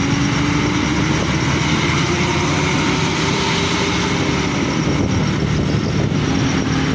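Large bus diesel engine running steadily at low revs, a constant pitched hum.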